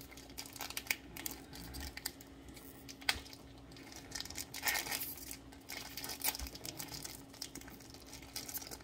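Plastic packaging of a fresh mozzarella ball being crinkled and torn open by hand, in irregular rustles and rips that are loudest a little past halfway, over a faint steady hum.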